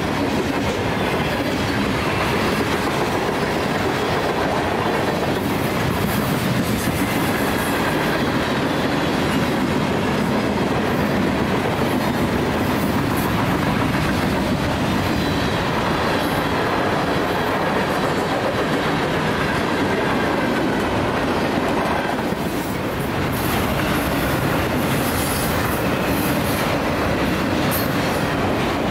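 Freight cars rolling past close by: a steady, loud run of steel wheels on the rails, with no locomotive in the picture.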